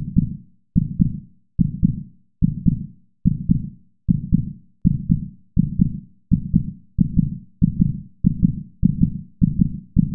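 Heartbeat sound effect: low double thumps (lub-dub) in an even rhythm, quickening steadily from a little over one beat a second to nearly two.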